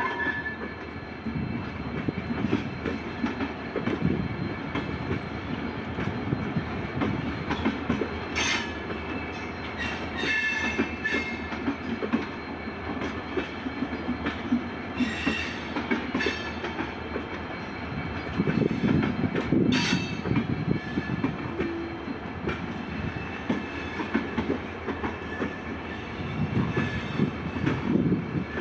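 Passenger train coaches rolling past, wheels clattering over rail joints and points in a continuous rumble. Several brief high-pitched wheel squeals come through it.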